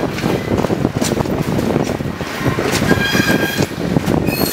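Alco S2 diesel switcher's turbocharged six-cylinder engine working as it hauls a train, heard with the road and wind noise of a vehicle pacing alongside. A brief high ringing squeal comes in about three seconds in.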